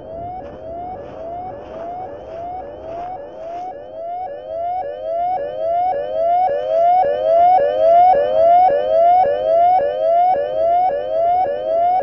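A siren-like tone that sweeps up in pitch, drops back suddenly and sweeps up again, just under twice a second, with a second tone gliding alongside it. It grows louder about five seconds in.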